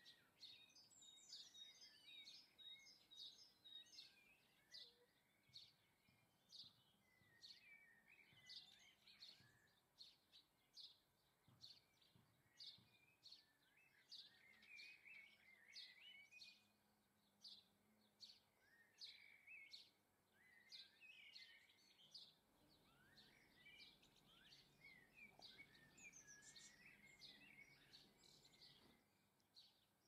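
Faint garden birdsong: small birds giving many short, high chirps and twittering calls in quick succession.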